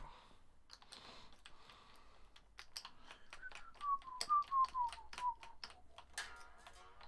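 Plastic string winder cranking a Les Paul's tuner as a new string is wound on, giving a quick run of sharp clicks, about three or four a second. A short falling whistle-like tone runs through the middle, and there is a brief scrape near the end.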